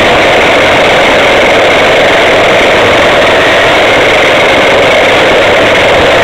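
Loud, steady rumble and rattle of a radio-controlled camera car driving over bumpy asphalt, picked up by the camera mounted on its own chassis, with a steady whine running through it.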